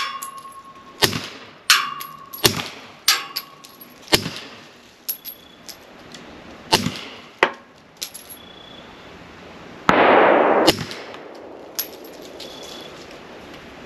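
Pistol shots at a range: about a dozen sharp reports at uneven spacing, several followed by the brief metallic ring of a hit steel target. About ten seconds in comes a short, loud rush of noise.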